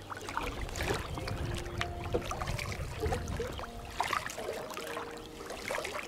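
Kayak paddle blades dipping into the river, with water splashing and dripping off them on each stroke.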